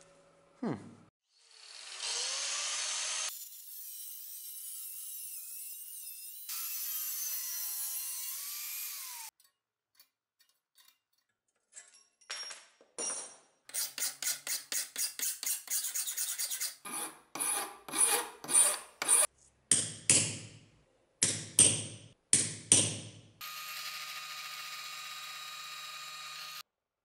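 A steady scraping noise for about seven seconds, then a hand file stroking across a small brass bar clamped in a steel vise: quick strokes about four a second, then slower, louder strokes. Near the end a bench drill runs steadily as it bores into brass.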